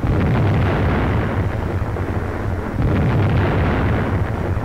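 Naval gunfire in a shore bombardment: a sudden heavy blast that rolls on into a continuous deep rumble, swelling again about three seconds in.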